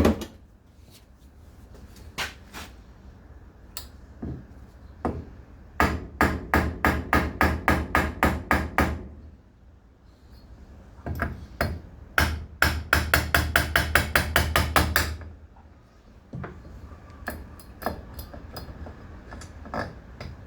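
Mallet striking the flywheel of a Ryobi RST31E string trimmer engine to knock it loose from the crankshaft, in two fast runs of blows about five a second, with a few single knocks before and after.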